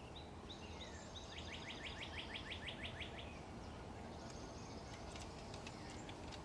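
A songbird singing a quick trill of about a dozen down-slurred notes that lasts about two seconds, followed later by fainter high chirps, over a steady low hum of outdoor background noise.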